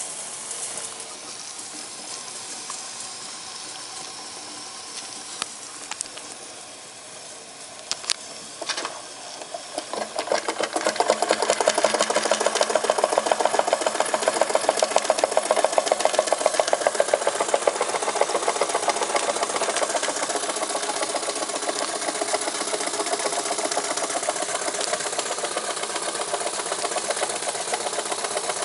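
Jensen #50 toy steam engine: steam hissing at first, with a few sharp ticks, then the engine picks up about a third of the way in and runs fast with a rapid, even chuffing beat that holds steady.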